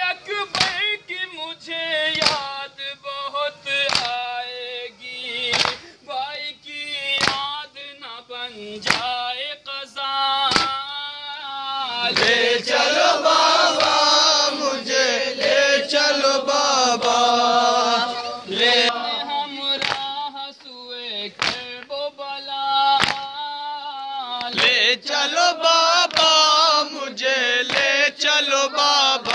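Men chanting a nauha, an Urdu Shia mourning lament, with a lead reciter and the group joining on the refrain. Sharp unison slaps of chest-beating (matam) keep the beat about every second and a half.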